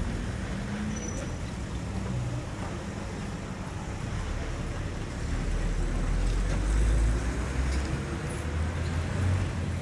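Street traffic rumbling, with a vehicle passing and growing louder a little past the middle.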